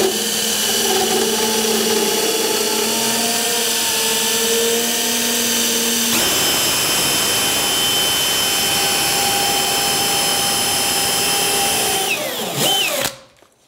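Cordless drill spinning an internal pipe cutter inside an ABS drain pipe, cutting the pipe down flush from the inside. A steady whirring whose whine changes pitch about six seconds in, then slows and stops shortly before the end.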